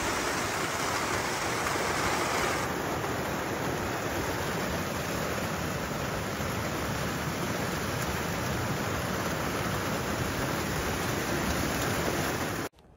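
Steady rain falling on grass, an even hiss that cuts off abruptly near the end.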